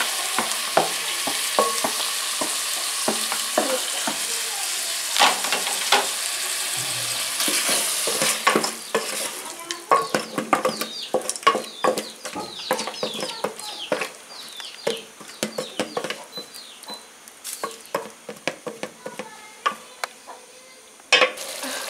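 Meat and tomatoes sizzling in a metal pot, then, from about eight seconds in, a wooden spoon stirring and scraping the stew against the pot with many quick knocks.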